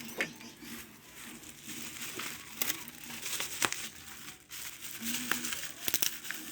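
Crinkling handling noise with scattered sharp little clicks and taps, as hands work over crinkly material.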